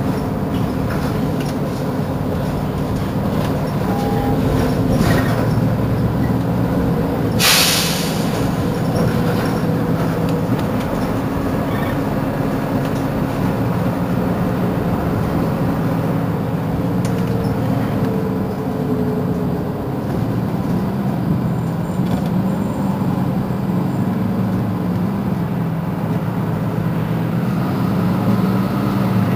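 Mercedes-Benz Citaro C2 city bus heard from inside while under way: its engine and drivetrain run steadily with road noise, the engine note shifting with speed. A short, sharp hiss of released air comes about seven and a half seconds in.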